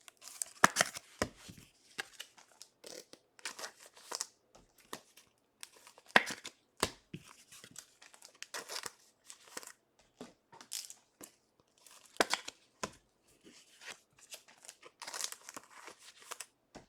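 Trading cards and their plastic packaging being handled: irregular rustling, crinkling and short taps.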